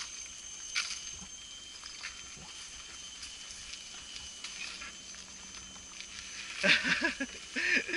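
Quiet trail background with a faint steady high-pitched hum and a light click about a second in, then a person's voice breaks in loudly near the end.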